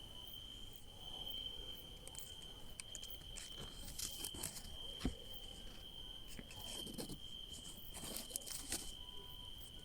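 Crickets singing at night in a steady, high, unbroken trill. Intermittent rustling and a few sharp clicks sound over it in the middle and later part.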